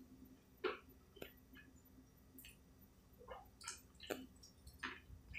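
Faint eating sounds from biting and chewing a club sandwich on rye: a scattering of short, soft, wet mouth clicks and smacks.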